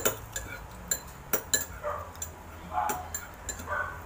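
Cutlery clinking against plates and dishes at the table: a scattered series of sharp, light clicks, each with a brief high ring.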